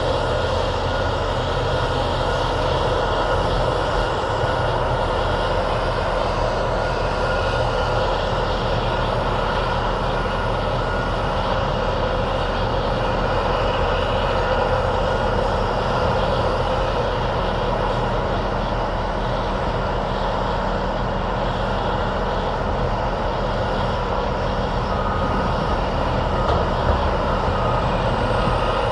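Heavy construction-machine diesel engine running steadily close up, a continuous low drone with no pauses.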